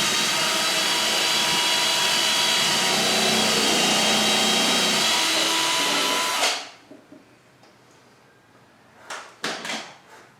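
Power drill running steadily with a constant whine for about six and a half seconds as it bores into the wooden backing board and wall stud, then cutting off. A few short knocks follow near the end.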